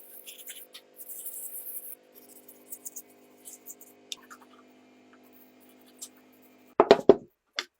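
Metal parts of an old flare gun being handled on a workbench: faint scrapes and light clicks over a steady hum, then a quick cluster of sharp knocks near the end and one more just after.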